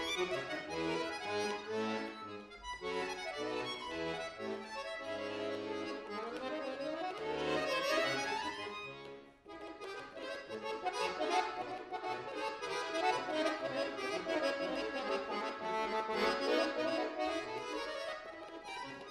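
Bayan (chromatic button accordion) played solo in fast passages, with upward-sweeping runs about six to eight seconds in and again near the end, and a brief break just after nine seconds.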